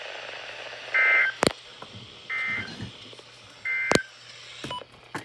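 Emergency Alert System end-of-message data bursts: three short, buzzy two-tone digital bursts about a second and a half apart, marking the end of the alert. Sharp clicks fall between them.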